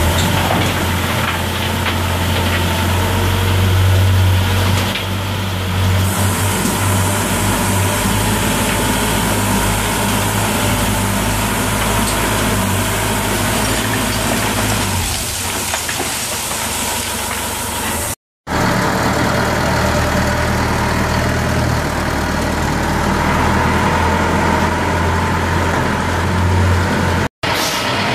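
Diesel engine of an XDCY underground scooptram (load-haul-dump loader) running steadily. The sound cuts out briefly twice, about two-thirds of the way in and again near the end.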